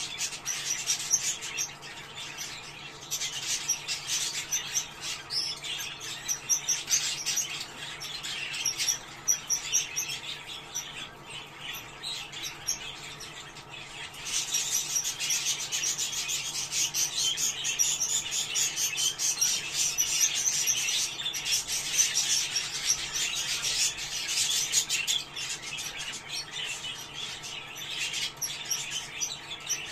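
A flock of budgerigars chattering and warbling: a dense, unbroken stream of short high chirps that becomes busier and louder about halfway through.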